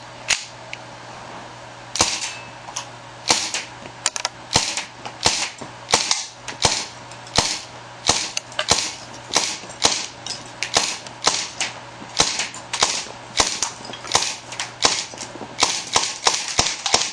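KJW M9 Beretta gas blowback airsoft pistol fired shot after shot, each a sharp crack with the slide cycling. A couple of shots in the first two seconds, then about two a second, coming faster near the end.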